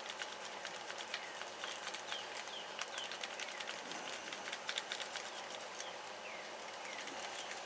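Lock pick and tension wrench working the pins of a pac-lock padlock: light metallic clicks and scrapes, scattered irregularly.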